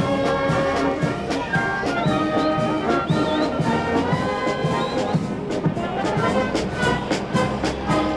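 Brass band music with a steady beat.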